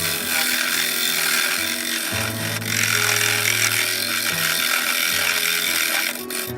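Wood lathe working a spinning wooden plate: a steady, loud rushing hiss of wood being worked, which stops near the end. Background music plays underneath.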